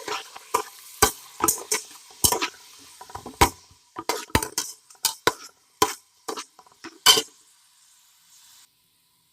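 Chopped onion sizzling in hot oil in a pot while a spoon stirs it, knocking against the pot again and again at an uneven pace. The sizzle fades and stops near the end.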